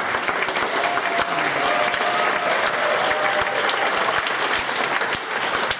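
Audience applauding: many hands clapping steadily in a large hall.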